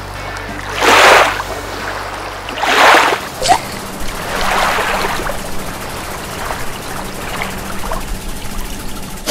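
Outro sound effects: a series of swelling whooshes with a watery, splashing texture, about two seconds apart, over a low steady hum.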